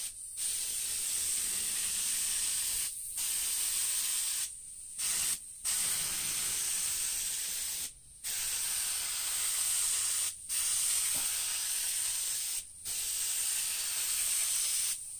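Central Pneumatic mini detail spray gun spraying with compressed air: a steady high hiss in passes. The hiss breaks off briefly about seven times as the trigger is let go between strokes.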